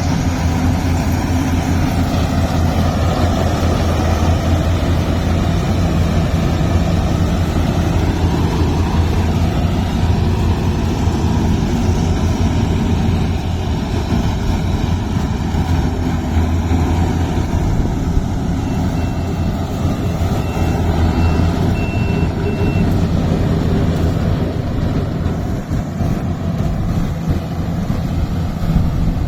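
Yanmar rice combine harvester's diesel engine running steadily under load. A row of short, high-pitched beeps sounds for a few seconds past the middle.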